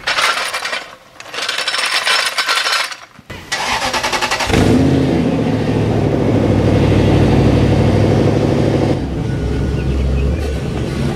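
A Toyota Tundra pickup's engine starts about four and a half seconds in and runs steadily, changing a little near the end as the truck pulls forward. Before it, two loud noisy bursts fill the first three seconds.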